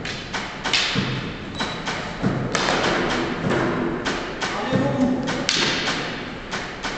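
Fighters' feet thudding and stamping on a sports hall floor, with sharp clacks of wooden combat canes, in quick irregular succession; voices call out briefly a few times.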